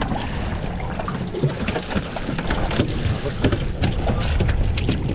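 Wind rumbling on the microphone aboard a small fishing boat, with many irregular sharp clicks and knocks.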